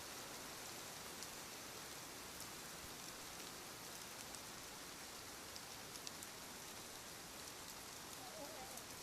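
Faint, steady hiss with scattered soft ticks, like light rain falling.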